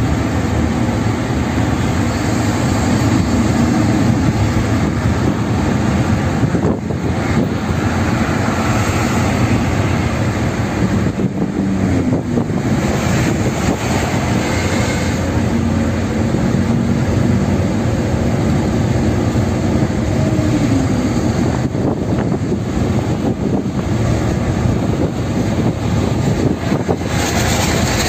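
Steady drone of a car driving at speed, heard from inside the cabin: road and tyre noise with the engine hum underneath, its pitch drifting up and down a little now and then.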